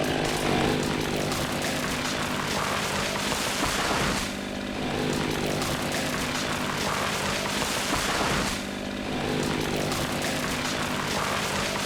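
Chainsaw engine running steadily at high revs, easing off briefly about four seconds in and again about nine seconds in.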